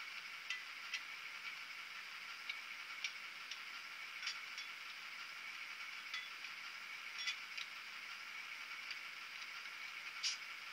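Brawa H0 V100 model diesel locomotive with onboard sound, running on model track: a steady thin hiss with no bass, broken by about a dozen irregular light clicks, the sharpest near the end.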